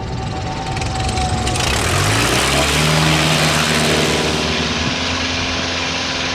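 Pitts S-1S biplane's engine and propeller running at low power as the plane rolls out after a three-point touchdown. A loud rush of air and rolling noise cuts in about a second and a half in and fades after about four seconds, while the engine's pitch drops and then settles to a steady idle.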